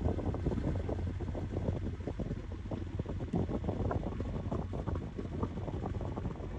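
Wind buffeting the microphone of a moving game-drive vehicle, with the vehicle's steady low engine rumble underneath.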